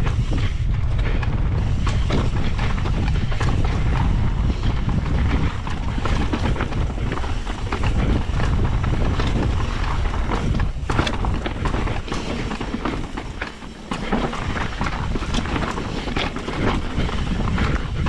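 Mountain bike riding down rough, rocky singletrack: tyres crunching over loose stones, with a steady run of clatter and rattling knocks from the bike over the bumps and a low rumble of wind on the microphone. The riding eases for a moment a little after halfway.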